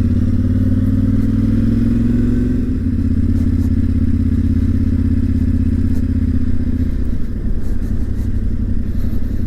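Yamaha Ténéré 700's 689 cc parallel-twin engine running steadily under way on a dirt road, its note dropping and getting quieter about seven seconds in.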